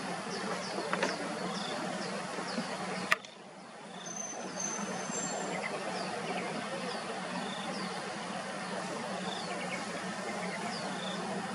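Outdoor waterside ambience: a steady background rush and low hum with repeated short, high, falling chirps, several a second at first and sparser later. A single sharp click about three seconds in is followed by a brief dip in the background.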